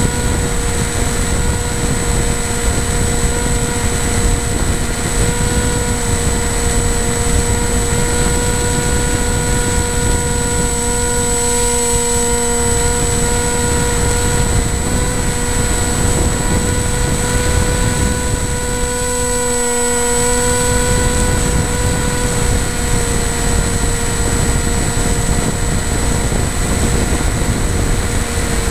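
FPV model aircraft's motor and propeller running steadily in flight: a constant hum with a slight dip in pitch twice, under wind rushing over the onboard camera's microphone.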